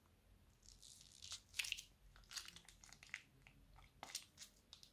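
Plastic piping bag crinkling and crackling as it is squeezed and twisted by hand, a run of irregular sharp crackles.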